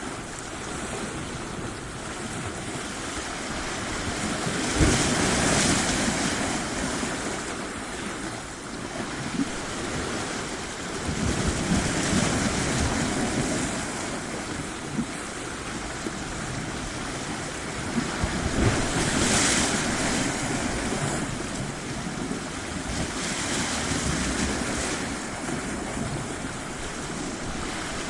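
Sea waves washing onto a beach, a steady rush of surf that swells and ebbs as each wave breaks, about every six or seven seconds.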